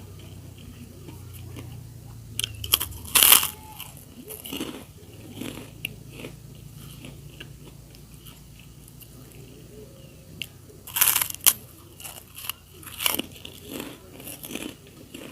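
A person eating close to the microphone: loud crunchy bites and chewing of crisp kerupuk crackers. The bites come in a cluster about three seconds in and again in the last third, with quieter chewing between.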